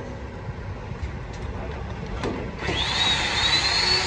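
Electric shear wrench starting up on a tension-control bolt about two-thirds of the way in: a loud motor whine that rises in pitch and then holds. Before it, only faint handling and a single tap.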